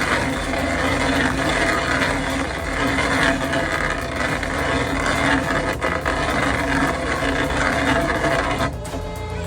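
Stump grinder running steadily with its cutting wheel grinding into a stump, a dense mechanical noise that cuts off near the end.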